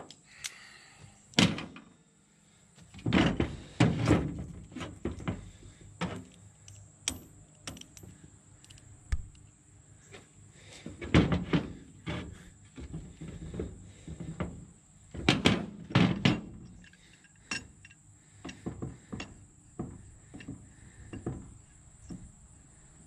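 Metal clanks and knocks as a driveshaft yoke and hand tools are handled on a steel pickup tailgate, coming in several clusters with quiet gaps between.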